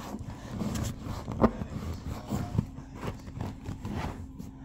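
Fabric rustling and scraping as a throw is tucked in around a sofa cushion by hand, with small handling bumps and one sharper knock about a second and a half in.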